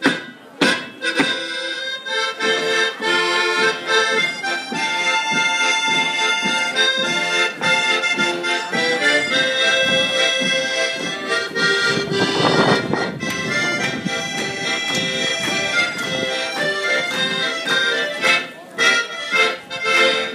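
Accordion playing a German folk dance tune, with a few sharp percussive strikes at the start and a run of them near the end.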